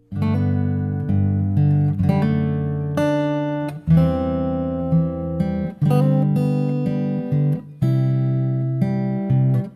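Music starting abruptly: strummed acoustic guitar chords, a new chord struck about once a second.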